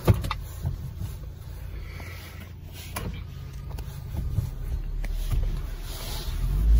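Car engine idling just after a cold start, heard from inside the cabin as a steady low hum, with a couple of sharp clicks. The low rumble grows louder near the end.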